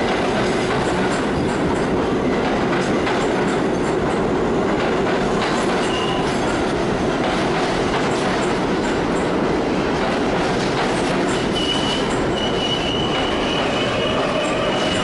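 Budd R32 subway cars running into an underground station, a steady noise of steel wheels on rail. A thin high wheel squeal comes in briefly about six seconds in and again from about twelve seconds on as the train slows.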